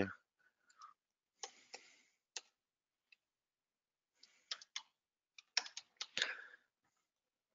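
Computer keyboard typing in three short clusters of keystrokes with pauses between, as a mistyped entry is deleted and retyped.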